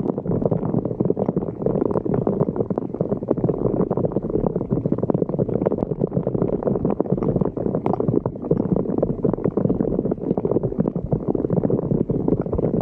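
Floodwater gurgling and churning steadily as it drains into a street sewer inlet.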